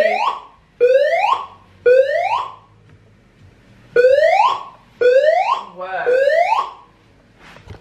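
Building fire alarm sounding its evacuation tone: rising whoops, three in a row about a second apart, a pause of about two seconds, then three more. It is a false alarm.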